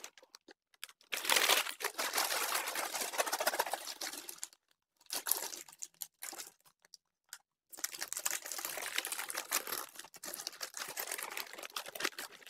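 Foil-lined plastic snack bags of popcorn crinkling loudly as they are handled and pulled open. The crinkling comes in two long stretches with a few short crackles between them.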